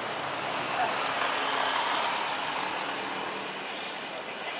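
Airbus A350's Rolls-Royce Trent XWB jet engines running at low power as the airliner taxis, a steady rushing hiss with a faint low hum.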